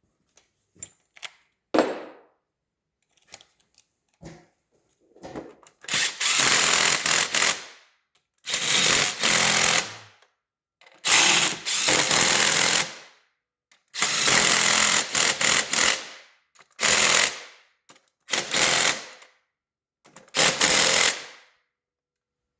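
Impact wrench running fasteners in: about seven short runs of rapid hammering, each one to two and a half seconds long, starting about six seconds in, after a few light knocks and clicks of parts being handled.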